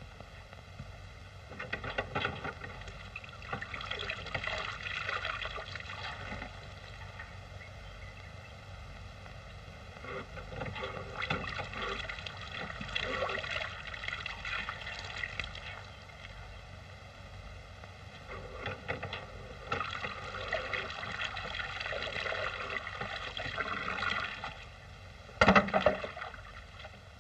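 Water splashing and gurgling at an old hand pump in several bursts, over a steady hiss from the old soundtrack. A single loud thump comes near the end.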